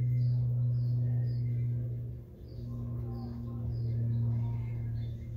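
A steady low hum that dips briefly about two seconds in, with faint, short high chirps of small birds repeating through it.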